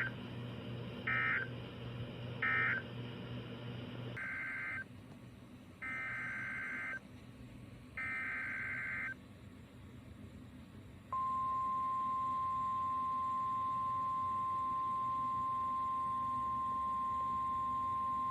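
Emergency Alert System SAME data bursts: three short end-of-message bursts, then, starting about four seconds in, three longer header bursts that open the next alert. About eleven seconds in comes a loud, steady single attention tone, the 1050 Hz weather radio alert tone, which is still sounding at the end.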